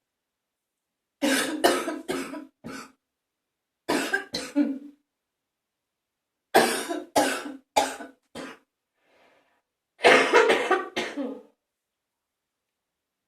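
A person's wet, phlegmy morning cough, coming in four bouts of several sharp coughs each, with pauses in between.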